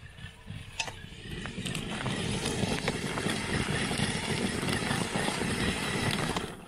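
Traxxas X-Maxx 8S electric RC monster truck driving hard through snow: a steady noisy roar of its motor and drivetrain and its paddle tires churning up snow. The sound builds over the first couple of seconds and cuts off suddenly near the end.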